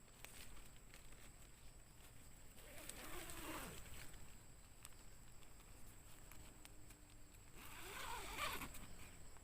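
An animal calling twice, each call drawn out and bending in pitch, about three seconds in and again near the end, over a faint steady high whine.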